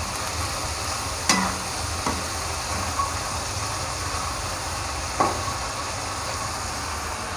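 Snow peas and mushrooms sizzling in a wok as a metal spatula stirs them, with three sharp clinks of the spatula against the pan: about a second in, at two seconds and near five seconds.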